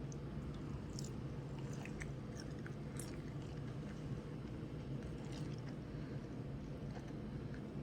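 A person chewing food, with scattered small, sharp mouth clicks and crunches over a steady low hum.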